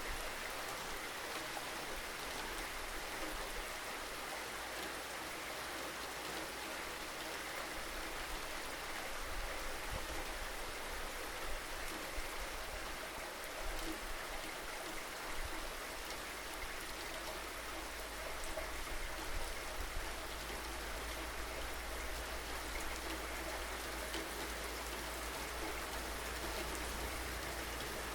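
Steady rain falling, an even hiss with no single drops standing out, over a steady low rumble.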